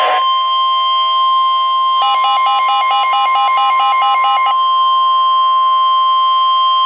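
NOAA Weather Radio 1050 Hz warning alarm tone: a loud, steady single high tone, the attention signal sent before a warning message, here a tornado warning. For about two and a half seconds in the middle, a fast beeping of about five beeps a second sounds over it.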